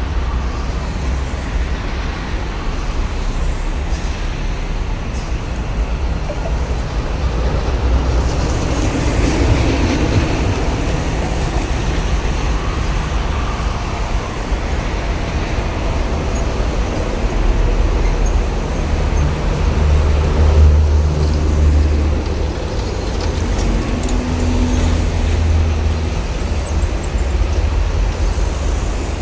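Heavy toll-road traffic: trucks and buses passing by with steady engine and tyre noise, one heavy vehicle passing loudest about two-thirds of the way through.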